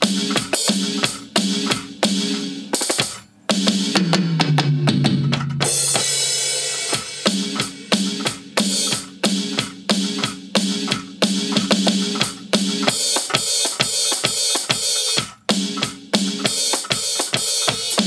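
Roland SPD-SX sampling pad struck with drumsticks, triggering acoustic drum-kit samples (kick, snare, open and closed hi-hat) in a ranchera beat. About three seconds in the beat breaks off for a fill that falls in pitch into a cymbal crash, and then the groove picks up again.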